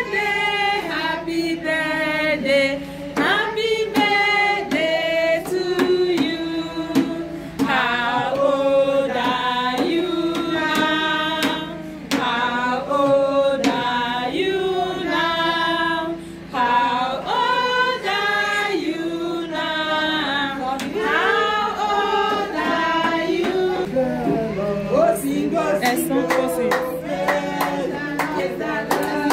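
A group of women's and children's voices singing together, carrying on the birthday singing for the birthday girl. Hand clapping joins in near the end.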